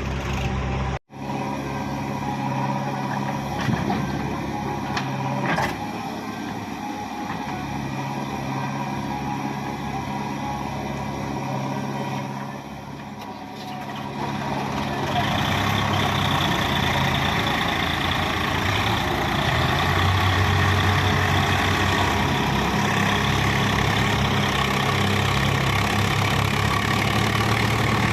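Heavy diesel engine running steadily, getting louder and working harder about halfway through. The sound cuts out briefly about a second in.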